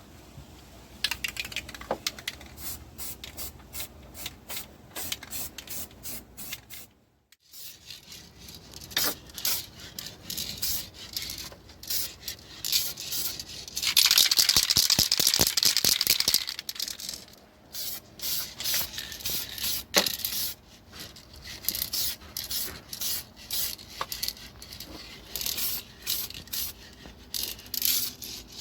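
An aerosol spray-paint can hissing steadily for about two and a half seconds midway, amid scraping and many sharp irregular clicks from handling the parts and the can.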